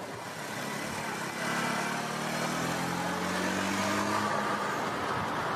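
Motor vehicle engine running under road and wind noise. From about a second and a half in, the engine tone grows louder and slides slightly lower in pitch.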